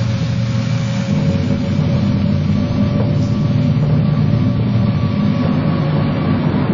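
Steady low mechanical rumble with a faint steady hum above it: a film sound effect under the robot's wade through the lava.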